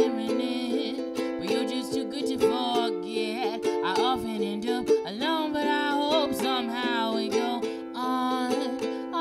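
Ukulele strummed in steady chords, with a woman singing a wavering melody over it.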